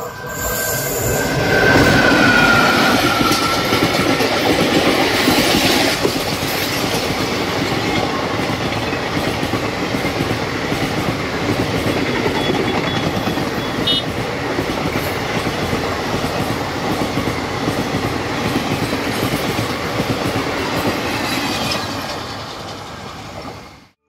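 Indian Railways WAP4 electric locomotive passing at speed, with a high whine that falls in pitch as it goes by. The coaches follow with a steady rumble and wheels clattering over the rail joints, which fades near the end.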